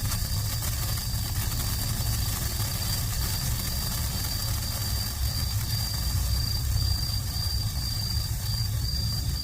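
Subote botan senko hanabi sparkler crackling faintly, under a loud steady low rumble and a steady high-pitched whine.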